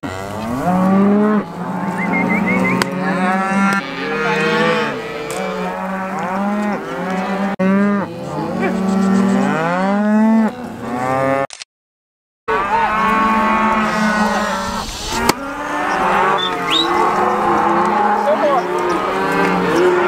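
A herd of penned cattle mooing, many overlapping calls at once, with about a second of silence near the middle.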